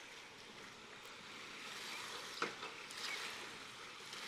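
Faint, steady outdoor background hiss with a light click about two and a half seconds in.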